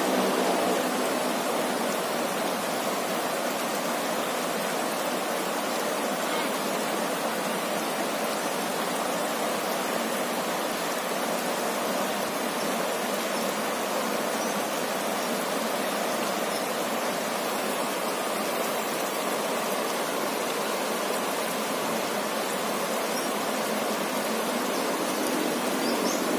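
A fast-flowing river rushing over rocks in shallow rapids: a steady, even rush of water.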